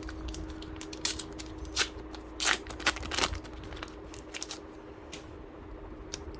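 A foil flow pack of Topps Match Attax trading cards being torn open and rustled, and the cards handled. It is a string of crinkles and snaps, loudest about two and a half seconds in.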